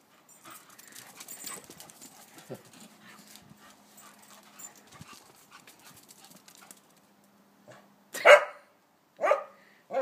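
A dog barks three short, loud barks in the last two seconds. Before them come faint scuffling and scratching sounds.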